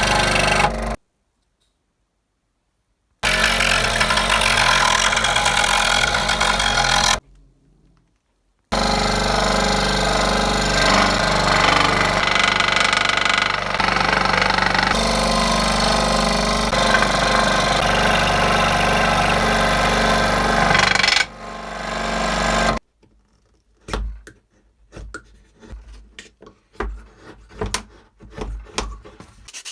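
Electric power tool running on wood in several short clips, each cut off abruptly; the motor winds down near the end, followed by scattered light knocks and taps.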